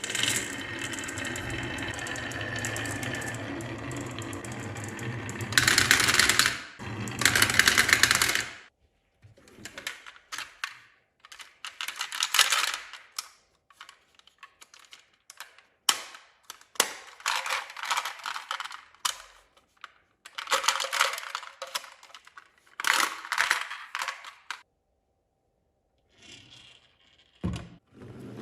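Marbles rolling and clattering down wooden marble-run tracks: a steady rattling run for the first few seconds, two louder clattering bursts, then a string of shorter rattling runs with brief gaps between them.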